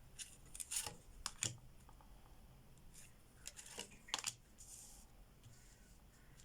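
Tarot cards being handled: a handful of short, crisp papery snaps and slides as cards are drawn and laid down, in two clusters about a second in and again past the middle.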